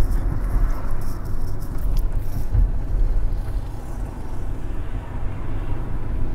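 Steady low rumble of a van's engine and road noise, heard from inside the passenger compartment.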